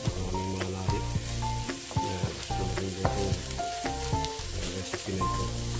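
Milkfish, onions and garlic sizzling in a steel wok while a wooden spatula stirs and scrapes through them, with scattered clicks. Soft background music with held melodic notes and a steady bass plays underneath.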